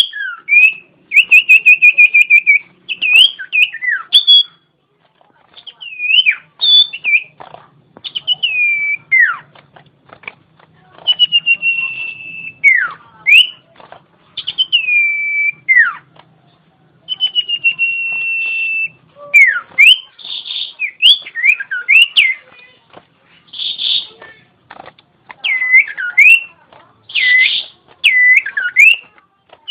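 Iora (cipow) singing: phrases of clear whistled notes, some sliding sharply down and others rapid trills held at one pitch, separated by short pauses. In the second half a few harsher, rasping notes are mixed in.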